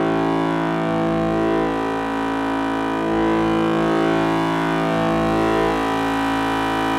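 Electronic drone music: layered, sustained synthesizer tones holding steady and shifting slowly, with no beat or percussion.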